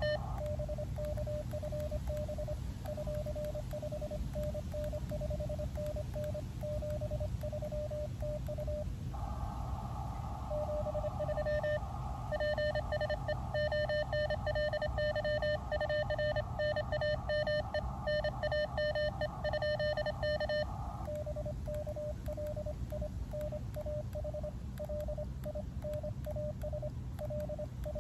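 Morse code (CW) beeping from an Elecraft KX2 transceiver: a single-pitched tone keyed on and off in dots and dashes. From about 9 to 21 seconds in, a second, louder and buzzier Morse signal takes over, with a hiss of band noise behind it.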